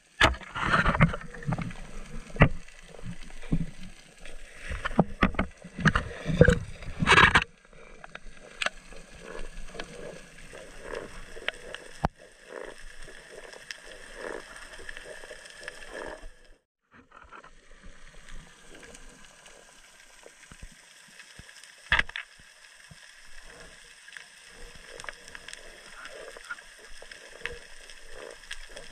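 Underwater sound heard through a camera housing as a spear is worked at a reef: a run of loud knocks and scrapes for the first seven seconds or so. After that comes a softer, steady crackle with scattered clicks, and one sharp click about 22 seconds in.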